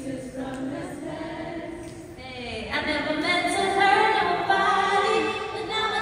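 A woman singing into a microphone, her voice amplified through a theatre PA, swelling louder about halfway through.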